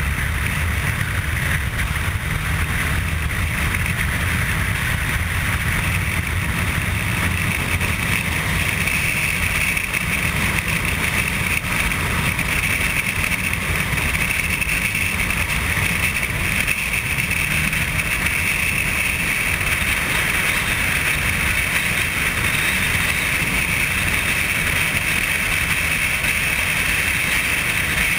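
Sport motorcycle riding at steady road speed: a constant rush of wind buffeting the microphone, with the bike's engine and tyre noise underneath.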